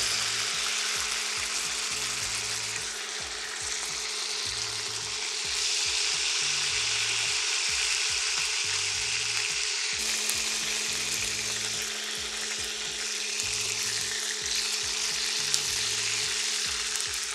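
Asparagus sizzling steadily in hot olive oil in a cast-iron skillet.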